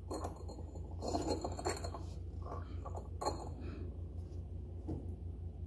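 Light clinks and taps of ceramic incense-burner pieces being handled and fitted together, several in the first three seconds and one more near five seconds, over a steady low hum.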